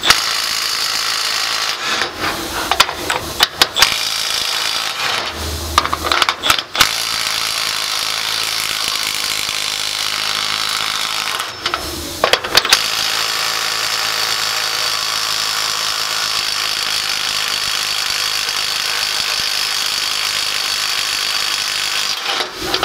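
Milwaukee 3/8-inch right angle impact wrench hammering continuously on a bolt torqued past 311 ft-lb. It stops briefly a few times and starts again, straining to break the over-torqued bolt loose, then stops shortly before the end.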